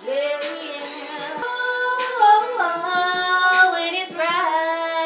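Music with a woman singing long, held, sliding notes.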